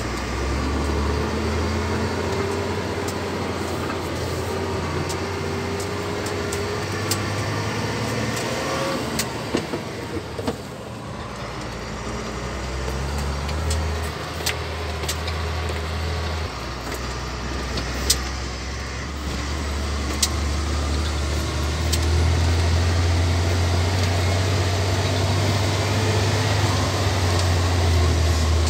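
Ford dump truck's diesel engine heard from inside the cab while driving: a steady low rumble with occasional sharp clicks. It eases for a few seconds about ten seconds in and runs louder again from about twenty-two seconds on.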